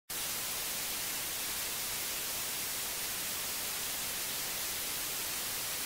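Steady, even static hiss with nothing else in it, the noise floor of an old videotape recording.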